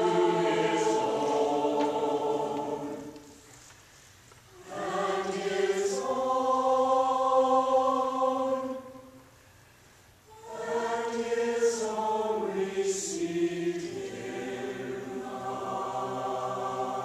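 Community choir singing a Christmas piece in sustained chords. Phrases are separated by two short breaks, a little over 3 seconds in and about 9 seconds in.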